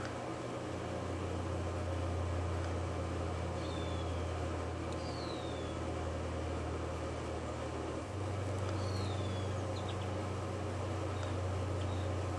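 Steady low machine hum under a faint even hiss, with a few faint, short, high chirps falling in pitch, scattered through it.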